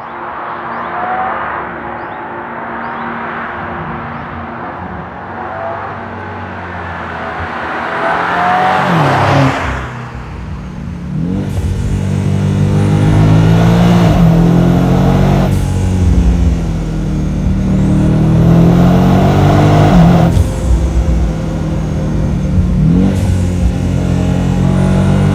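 BMW M5's 4.4-litre twin-turbo V8 under way, first at moderate load, then accelerating hard from about ten seconds in. The engine note rises and drops back several times as it shifts up through the gears.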